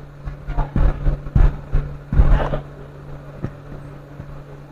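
A quick run of knocks and scrapes from handling, clustered in the first half and loudest about two seconds in, with one more click later, over a steady low hum.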